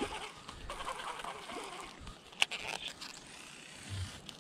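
Birds calling in the background, with one sharp click about halfway through.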